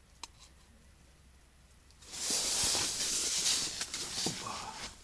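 Quiet, then about two seconds in, a loud close rustling of a synthetic winter suit rubbing against the microphone as the wearer shifts his body, with a few small clicks in it.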